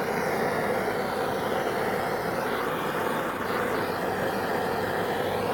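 Hand-held propane torch burning with a steady rushing noise as its flame preheats an aluminium sinker mold before the lead is poured. The owner thinks the propane cylinder feeding it is almost empty.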